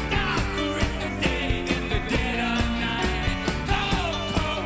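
Rock band playing live, with a steady drum beat under bass and guitars.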